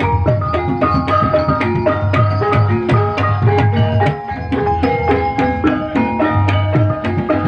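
Javanese gamelan music accompanying an ebeg trance dance: a running melody of tuned percussion notes over a dense, steady pattern of kendang hand-drum strokes, with a brief lull about four seconds in.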